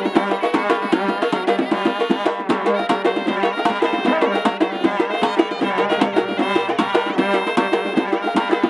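Tajik wedding band music: a reedy wind instrument plays a melody over fast, dense drumming on several hand-held drums.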